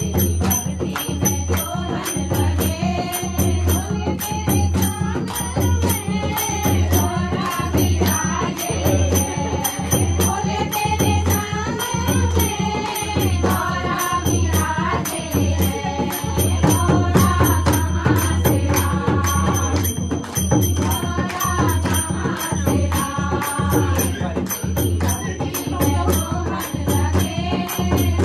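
Group of women singing a devotional folk song together to a steady beat of hand claps and a dholak drum, with jingling small hand cymbals.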